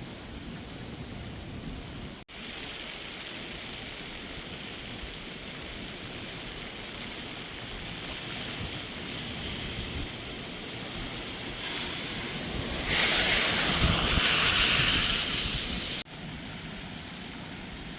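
Rushing floodwater of a swollen, fast-flowing river: a steady rushing noise, louder for a couple of seconds near the end.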